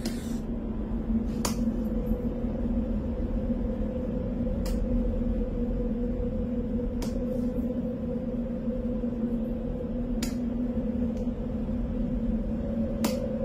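A steady low hum at two pitches, one about an octave above the other, with about five sharp clicks two to three seconds apart.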